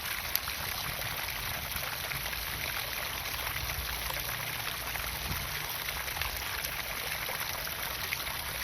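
Water pumped into a garden pond, pouring and splashing steadily into the pond.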